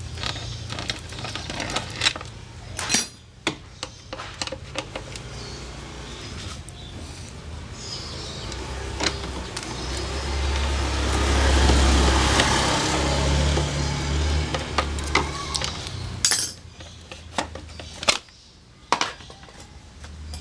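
Metal tools clinking and knocking against scooter CVT parts as the transmission is taken apart, with a longer rising-and-falling mechanical noise from about ten to fourteen seconds in.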